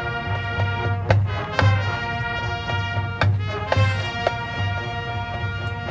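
High school marching band playing: brass holding chords over a low drum beat about twice a second, with a few sharp drum and cymbal hits.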